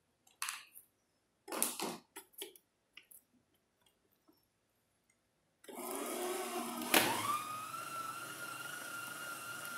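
A few knocks and clicks as the tilt-head stand mixer's beater head is lowered into the bowl, then its electric motor starts and runs, beating butter and margarine with cooked chocolate cream. A sharp click about a second after it starts, then its whine rises in pitch and holds steady.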